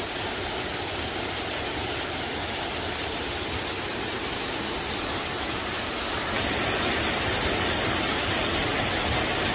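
Steady rushing of a waterfall close by. About six seconds in it grows a little louder and brighter, then holds steady.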